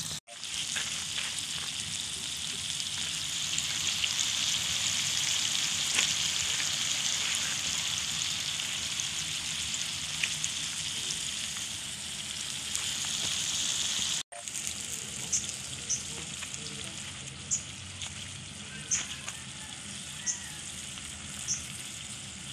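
Snake meat sizzling steadily in a hot wok over a wood fire. It breaks off briefly about 14 seconds in, and from then on sharp pops come about once every second or so, with a spatula stirring the pan near the end.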